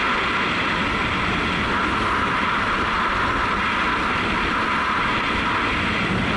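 Honda CRF250L's single-cylinder four-stroke engine running steadily at cruising speed, heard through a helmet-mounted camera together with wind rush and road noise.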